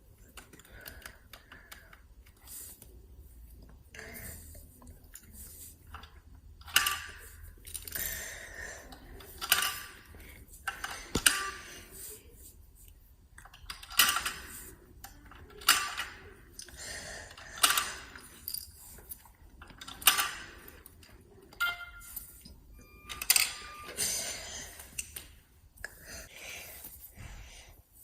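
Hard plastic coin tokens of a kit-built vending machine clattering as the machine gives back change and the tokens are handled: a sharp clack every second or two, with lighter rattles in between.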